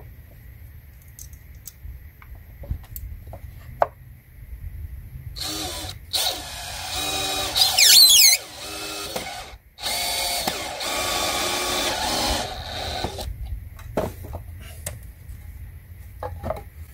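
DeWalt cordless drill driving a wood screw into a countersunk pilot hole. It runs twice, about five and ten seconds in, for a few seconds each with a short stop between, and there are light handling clicks before and after.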